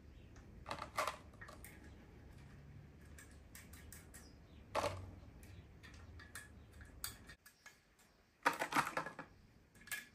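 Light metallic clinks and rattles of small steel nuts being picked from a plastic tub and set onto the camshaft bearing cap studs of a BMW S38 cylinder head, in a few short bursts, the longest near the end.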